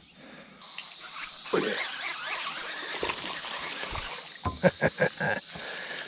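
Steady insect chorus buzzing high in pitch, starting abruptly about half a second in. Near the five-second mark there is a quick run of five or six sharp clicks or knocks, the loudest sounds here.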